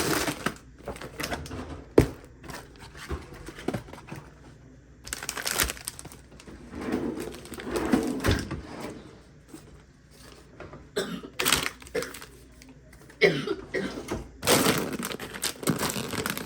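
Groceries being handled and put away: irregular rustling of bags and packaging with scattered clicks and knocks of items set down, one sharp knock about two seconds in.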